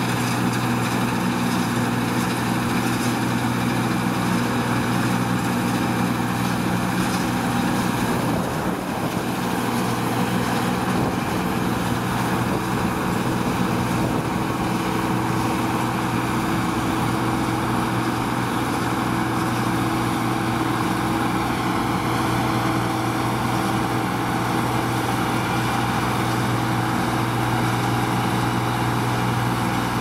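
New Holland Clayson 1530 combine harvester running steadily while cutting and threshing oats, its engine and machinery making a constant drone.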